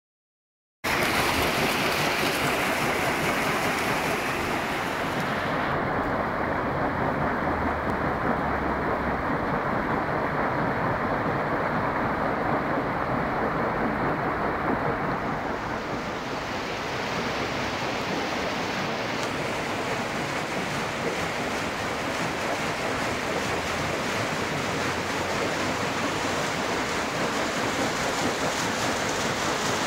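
Steady rushing of water in a watermill's stream, starting about a second in.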